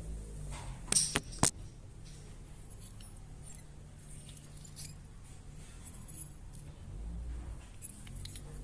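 Small metal parts and hand tools clinking: two sharp clicks about a second in, then faint scattered ticks of handling.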